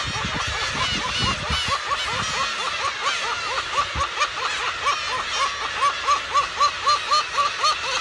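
A black-tailed gull colony calling, a dense chorus of overlapping mewing calls. About halfway through, one gull starts a rapid run of calls, about four a second, growing louder.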